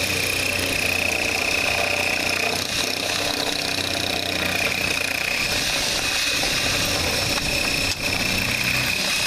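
Power drill with a masonry bit boring through a stucco wall, running steadily and stopping near the end.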